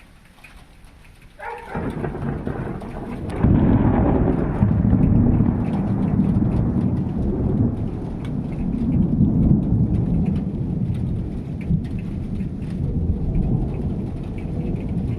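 Thunder: a sudden crack about a second and a half in, swelling two seconds later into a loud, deep rumble that rolls on unevenly, with rain falling.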